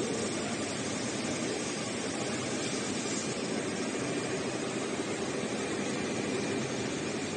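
Steady mechanical running noise of a large computerized sewing machine stitching heating wire onto fabric, blended with the even hum of the factory hall.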